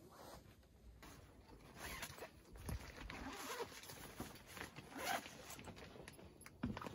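Zipper on a Coleman sleeping bag's carry bag being pulled open, with the bag's fabric rustling as it is handled.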